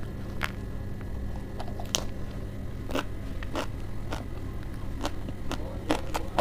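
Close-up chewing of a crisp lettuce leaf wrapped around spicy Wai Wai instant noodles: irregular crunches and mouth clicks, about one a second.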